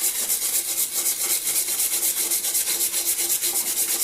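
A brush scrubbing loosened surface rust off a vintage hand drill's metal after an overnight CLR soak, in quick, even back-and-forth strokes of about ten a second.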